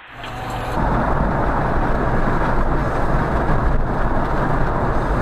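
Steady road and wind noise of a car cruising at freeway speed, heard through a dashcam inside the car; it swells up over about the first second, then holds.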